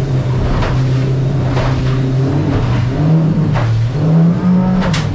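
Yamaha 115 VMAX outboard running at speed, its pitch rising and wavering from about three seconds in as the boat rides over chop. Several sharp slaps of the aluminium hull hitting the waves cut through the wash of water, the strongest near the end.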